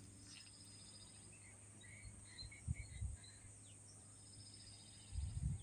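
Faint outdoor ambience of birds chirping softly among trees, with a high, thin trill twice and a few low thumps around the middle and near the end.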